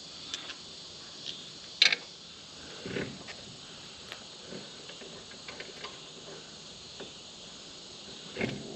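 Insects chirring steadily in the background, with a few scattered sharp clicks and knocks; the loudest knock comes about two seconds in, others around three seconds and near the end.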